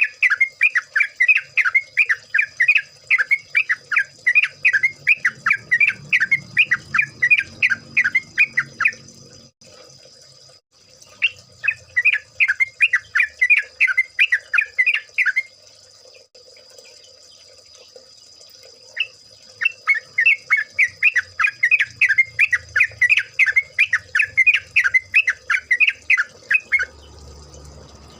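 Yellow-vented bulbul (trucukan) song: a fast run of bubbly, repeated notes, about four to five a second, in three long bouts with short pauses between them. A faint steady high tone sits underneath.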